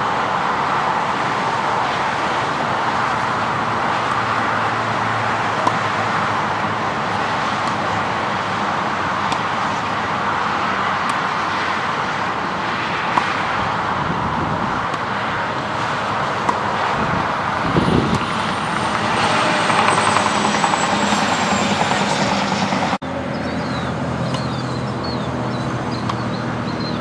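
Tennis balls struck by racquets in a rally, sharp pops several seconds apart, over a steady rushing background noise.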